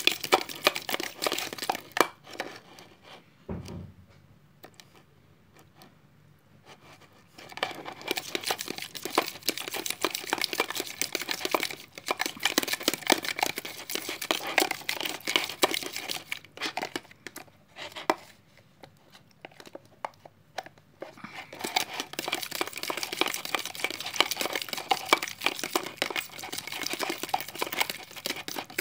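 Slime being kneaded and stretched by hand: a dense crackle of small pops and squishes. It stops for a few seconds twice, once near the start and once past the middle.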